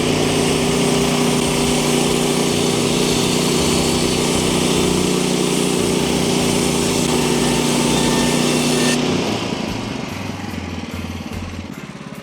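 Engine-driven manual bandsaw mill running at full speed with its blade turning, a loud steady mechanical drone with a high hiss. About nine seconds in the blade sound stops and the engine drops back to a quieter idle.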